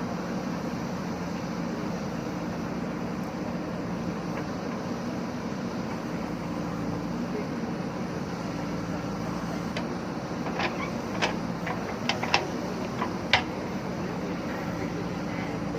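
JCB backhoe loader's diesel engine running at a steady note while it works, with a quick run of six or seven sharp clanks in the last third.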